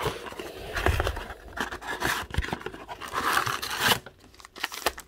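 Cardboard-and-wrap packaging of a trading-card blaster box being torn open and handled: scratchy tearing and rustling with small clicks for about four seconds, going quiet near the end.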